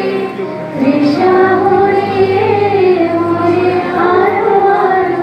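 A woman singing a slow melody into a microphone, with long held notes that glide from one pitch to the next.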